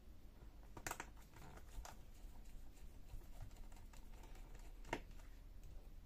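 A few faint, light clicks of small hard objects being handled: a pair about a second in, one near two seconds, and a sharper one near five seconds, over a low room hum.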